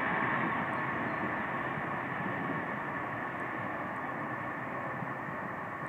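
Lockheed C-5 Galaxy's four turbofan engines at climb power just after a touch-and-go: a steady jet noise that fades slowly as the aircraft climbs away.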